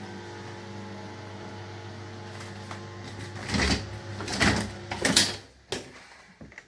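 Steady low hum, then three loud rustling scrapes and a sharp click as a refrigerator door is handled and pulled open.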